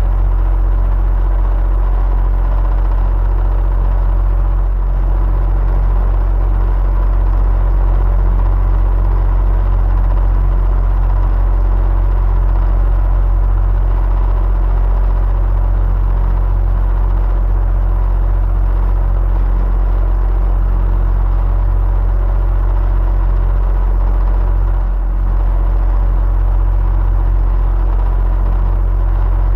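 Electric fan running steadily: a low hum and rumble with a faint steady whine above it.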